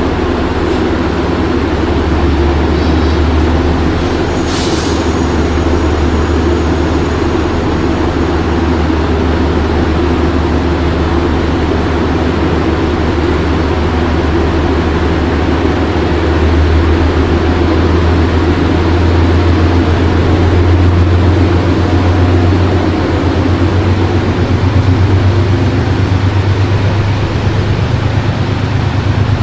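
Diesel locomotive engine running steadily with a low hum, its pitch stepping up about halfway through and again near the end as it throttles up. A brief hiss comes about four and a half seconds in.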